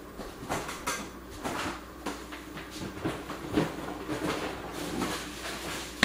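Irregular light knocks, clatter and rustling of things being handled in a kitchen, someone fetching and moving items about.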